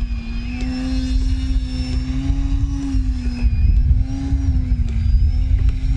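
E-flite Ultimate 3D's electric motor and propeller buzzing steadily as the biplane hovers nose-up, its pitch wavering slightly up and down as the throttle is worked. A low rumble of wind on the microphone lies under it.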